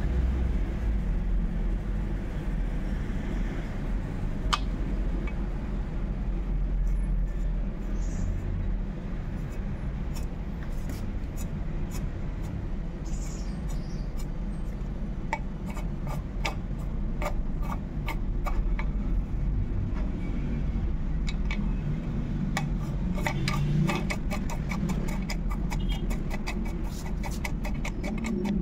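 Small metallic clicks and ticks from a hand rivnut setter being worked to crimp an alloy rivnut into a bike frame's bottle-cage mount hole, starting about a third of the way in and coming thicker near the end, over a steady low rumble of background noise.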